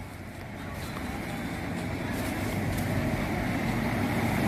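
Road traffic: a vehicle approaching, its engine and tyre noise growing steadily louder.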